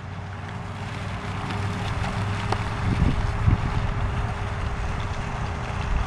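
Wind buffeting the camera's microphone: a steady low noise that grows louder over the first couple of seconds.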